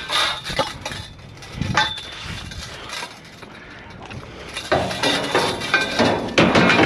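Scrap metal, pieces of fence and aluminum, clinking and clattering as it is handled and loaded. There is a burst of clatter at the start, a quieter stretch, then a busier run of clanks over the last two seconds.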